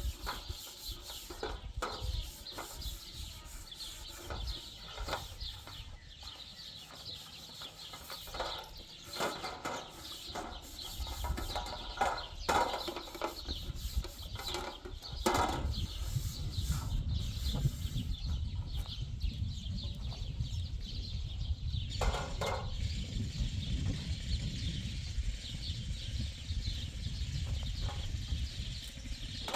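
Farmyard sounds of livestock and poultry, with scattered knocks and clatter.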